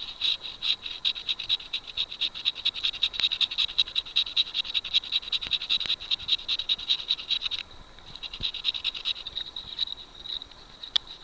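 A calling animal in fast, even, high-pitched pulses, about eight a second. The call thins out suddenly about two-thirds of the way through but keeps pulsing more faintly. A single sharp click sounds near the end.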